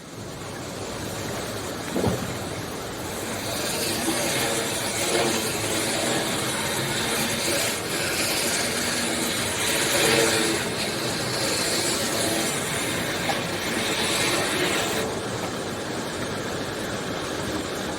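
A steady rushing noise, rising over the first few seconds and then swelling and ebbing, with faint low tones beneath it.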